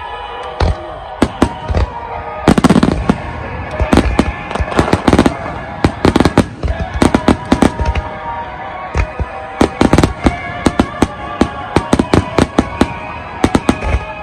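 Aerial firework shells bursting in rapid succession, a dense, irregular run of sharp bangs, several a second, with music playing underneath.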